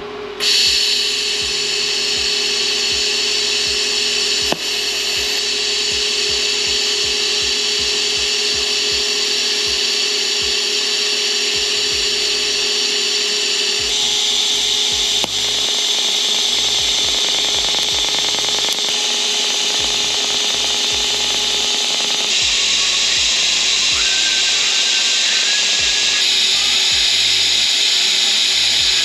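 TIG welding arc from an AHP AlphaTIG 203Xi welding grade 5 titanium tubing, a steady hissing buzz. Its tone shifts abruptly every few seconds from one weld to the next.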